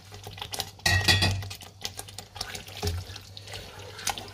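Wooden spoon stirring diced raw chicken into a thick tomato masala in a large pot: wet squelching with spoon knocks and scrapes against the pot, loudest about a second in.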